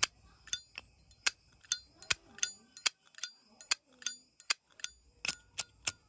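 Silver-plated Zippo lighter's hinged lid flipped open and snapped shut over and over, a sharp metallic clink with a bright ring two to three times a second, about fifteen in all.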